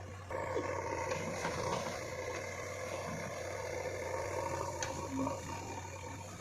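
Diesel engine of heavy earth-moving machinery running steadily with a low drone. It grows louder shortly after the start, with a brief sharp tick about five seconds in.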